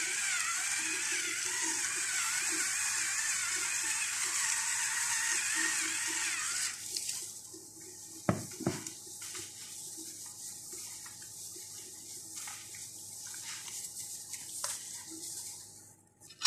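Battery-powered electric spice grinder running, a wavering motor whine over a hissy grinding noise, for about seven seconds before it stops. Two sharp clicks follow, then faint handling sounds.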